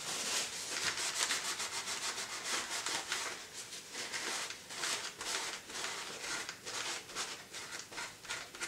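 Paper tissue rubbing back and forth over the inside of a motorcycle helmet shell, degreasing it with screen cleaner: a run of quick, repeated hissy wiping strokes.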